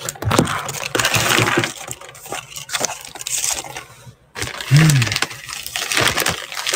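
Paper takeout bag rustling and crinkling as it is opened and its contents handled, with a brief hum from a person's voice, rising then falling, about five seconds in.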